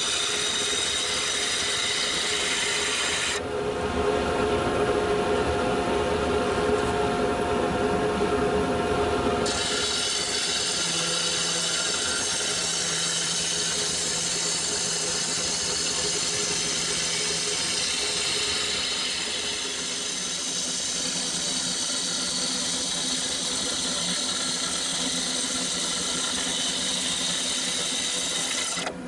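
Bowl gouge cutting the outside of a spinning walnut bowl blank on a wood lathe, a steady scraping cut of shavings over the lathe motor's hum, while the blank is trued and the chainsaw marks are turned away. The cut gets louder and heavier for several seconds from about four seconds in.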